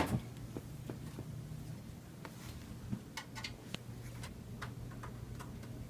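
Faint, scattered light clicks and ticks, about a dozen spread irregularly, over a low steady hum.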